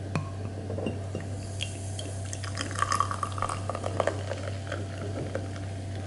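Dark beer poured from a bottle into a glass, glugging and splashing as the glass fills and foams, with a scatter of small clinks. A steady low hum runs underneath.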